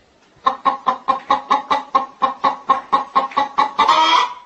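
Rapid, rhythmic hen-style clucking, about six clucks a second, building to one longer drawn-out call near the end, like a hen's laying cackle.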